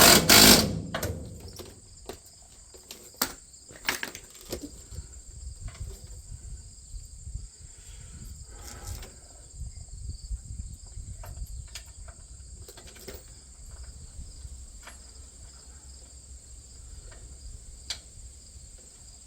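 Crickets chirping steadily throughout, under scattered sharp clicks and knocks of hand tools on the corn head's metal as bolts are snugged up. The loudest is a clatter right at the start.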